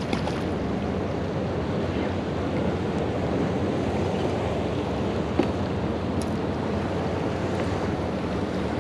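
Steady wind noise on the microphone over small harbour waves lapping at a boat's side, with one brief sharp click about five seconds in.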